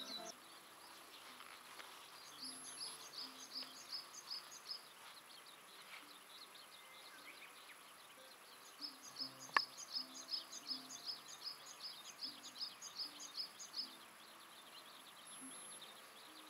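A bird singing two runs of quick, high chirps at about four a second, the second run longer than the first. A single sharp click sounds partway through the second run.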